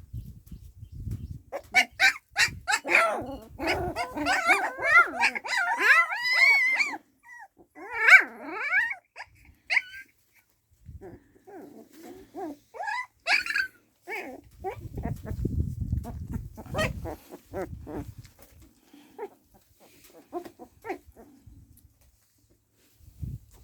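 A dog barking and yelping in a dense run of calls for the first several seconds, then more sparsely. A low rumble comes about two-thirds of the way in.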